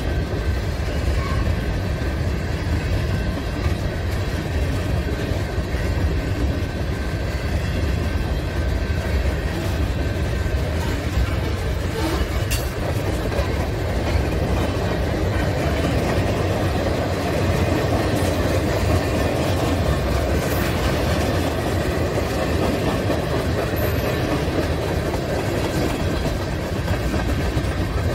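Lake State Railway freight train's covered hoppers and tank cars rolling past on the rails, a steady rumble that goes on without a break.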